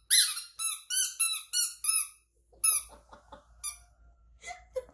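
Toy squeaker sounding in a quick run of short high-pitched squeaks, each dipping slightly in pitch at its end, about seven in the first two seconds, then two more spaced further apart. Faint rustling and clicks of toys being handled follow.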